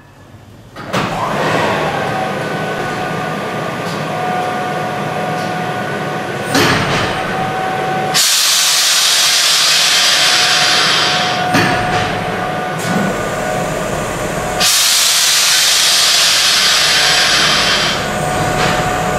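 Stationary tram motorcar 73 running: a loud, steady machine hum with a whining tone that starts about a second in. Twice it is joined by a long, loud hiss of about three seconds, near the middle and again near the end.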